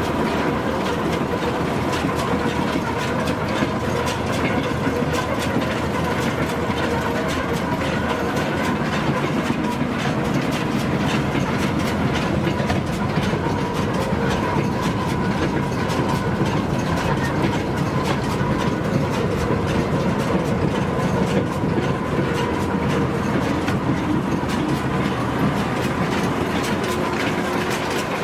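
New Holland 648 round baler running steadily, a continuous mechanical clatter with a dense rattle of fine clicks over a steady hum.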